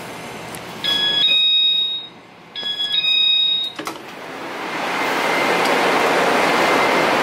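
Electronic chime on a train, a short pattern of high beeping tones played twice in a row. A knock follows, then a steady rushing noise swells over the last few seconds.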